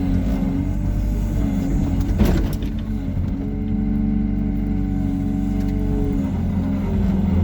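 Hyundai R140W-7 wheeled excavator running steadily as it works, with one sharp clank about two seconds in. A clearer, steadier tone comes in from about three seconds and drops away after six seconds.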